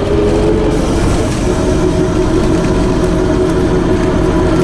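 Scania CN230UB bus under way, its broken differential giving a loud, steady gear whine over the engine and road rumble.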